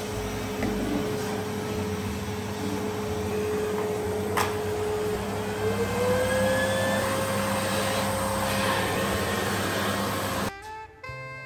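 Vacuum cleaner running, its motor whine stepping up in pitch about halfway through. It stops abruptly near the end, giving way to music.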